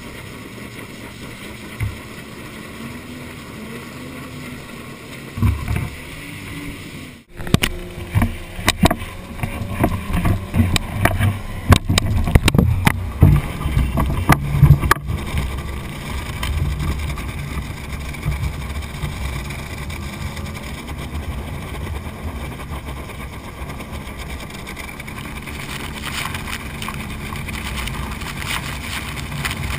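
Outboard-powered flat-bottom tunnel-hull boat getting under way. A steady low hum at first, then about eight seconds in, loud irregular splashing and water slapping against the hull as it picks up speed. It settles into a steady rush of water over a low engine drone.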